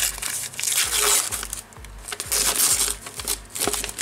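White paper wrapping crinkling and crumpling as it is pulled open by hand, over background music with a steady low beat.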